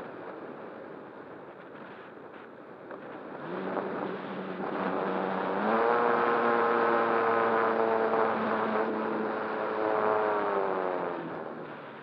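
Electric motor and nose propeller of a radio-controlled ASW 28 model glider running under power: a pitched whine starts about three and a half seconds in and steps up in pitch near six seconds. It holds steady, dips slightly, then fades out near the end, over the rush of airflow on the onboard microphone.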